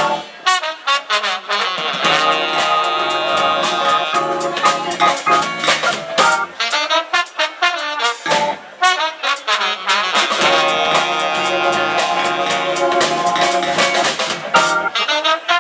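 Live funk band with trombone and saxophone playing together over drums. The horns hold two long notes, one about two seconds in and one about ten seconds in, with short punchy phrases between them.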